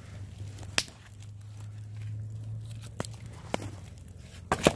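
Large log campfire burning hot and crackling, with a low steady hum underneath. Sharp single pops come about a second in, at three seconds and half a second later, and a louder cluster of pops comes near the end.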